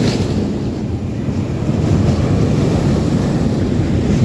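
Wind buffeting the microphone: a loud, steady rushing noise, heaviest in the low end.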